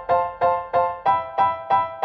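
Background music: a keyboard playing the same chord over and over, about three strikes a second, each note fading before the next.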